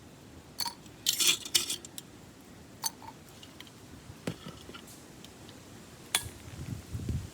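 Small metal items clinking and clattering as they are handled: a quick cluster of sharp clinks about a second in, then single knocks every second or two.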